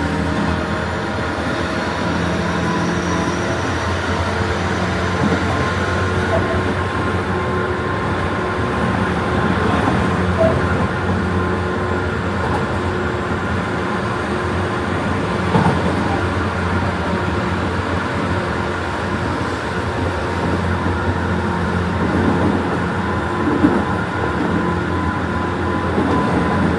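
JR West 201 series electric commuter train running, a steady rumble and hum with a few sharp clacks as the wheels cross rail joints.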